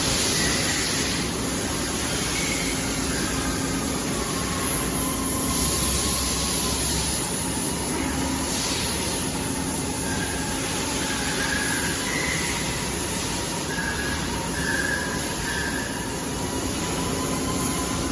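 Gantry robot and its machinery running: a steady mechanical hum and noise, with short high whines now and then, more often in the second half, as the axes move.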